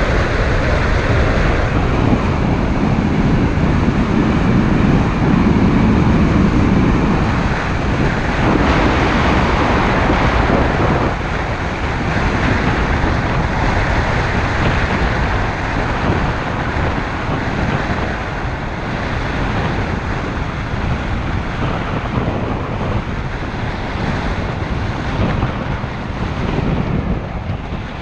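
Wind rushing over the microphone and tyre and road noise from a car on the move. It is a dense, steady rush that eases a little about a third of the way in.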